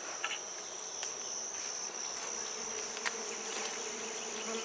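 Honeybees buzzing around an open hive, a low hum that comes in about a second and a half in and holds, over a steady high-pitched insect trill, with a few faint clicks.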